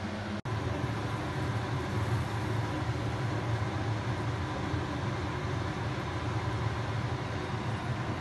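Steady low rumble and hiss of lit LPG burners on a glass-top gas stove, cut off for an instant about half a second in.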